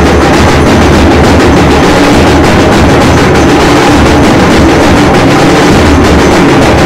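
Loud, unbroken din of evening aarti percussion: temple bells and gongs clanging in a fast, steady struck rhythm, with low drum thumps underneath.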